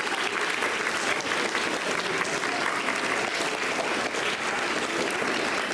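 Crowd of students applauding, a steady patter of many hands clapping.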